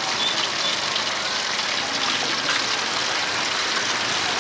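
Hot oil in a wok sizzling steadily as food deep-fries, an even hiss with faint crackles.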